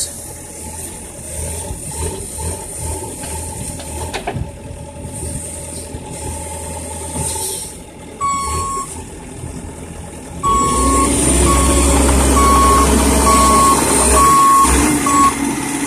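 Bobcat E50 mini excavator's diesel engine running, with its travel alarm beeping at one steady pitch about once a second from about eight seconds in. The engine gets louder about ten seconds in.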